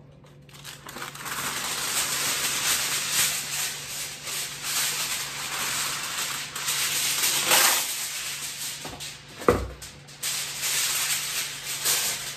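Aluminium foil being pulled from its roll and crinkled as it is pressed over a roasting pan: a dense crackling rustle, with one sharp knock about three-quarters of the way through.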